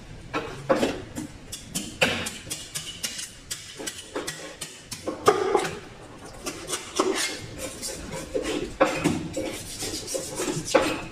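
Large knife scraping and chopping a whole fish on a wooden cutting board: irregular sharp knocks and rasping strokes of the blade against the fish and the board.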